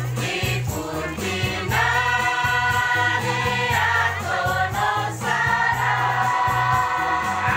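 A women's choir singing, with long held notes over a steady low beat.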